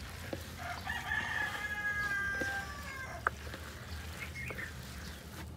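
A rooster crowing once: one long call of about two seconds, ending with a slight drop in pitch. A single sharp knock follows just after.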